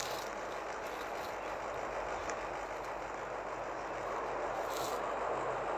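Beko air conditioner running, a steady rush of fan airflow with a faint low hum beneath it.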